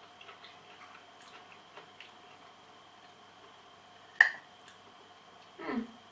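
Metal fork on a ceramic plate while cutting a piece of baked marrow: faint small clicks, then one sharp clink of fork against plate about four seconds in. Near the end comes a short falling 'mm' from the person eating.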